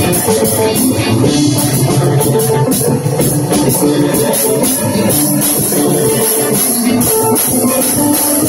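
Live band jamming: electric guitar and bass over a drum kit, mixed with electronic effects gear, playing continuously at a steady loud level.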